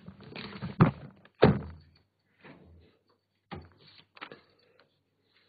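A person sitting down at a desk: several knocks and thumps from the chair and tabletop, with sheets of paper rustling.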